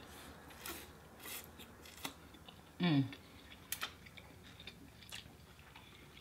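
Crisp crunching and clicking from eating Chinese takeout close to the microphone: a handful of sharp, separate crunches. About three seconds in comes a short 'mm' sound that falls in pitch.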